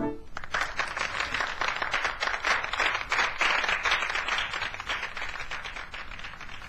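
Club audience applauding and clapping at the end of a live jazz tune, starting just after the band's last note and dying down near the end.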